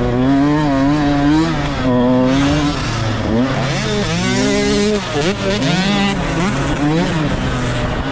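Motocross dirt bike engine revving hard, its pitch climbing and dropping again and again as the rider opens and rolls off the throttle, with a sharp change in the revs about four seconds in.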